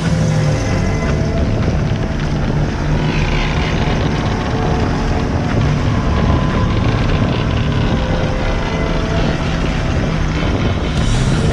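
Suzuki Grand Vitara driving along a dirt forest track, heard from a microphone mounted on the outside of the body by the front wing: a steady engine and tyre rumble with wind buffeting the microphone.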